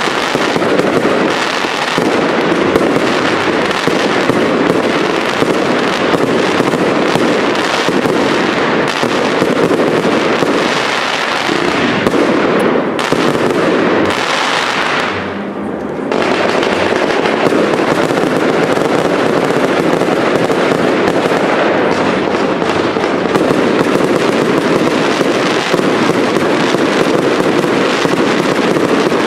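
Cake fireworks (multi-shot batteries) firing a rapid, continuous barrage of bangs and crackling bursts, with a brief lull about halfway through before the barrage resumes.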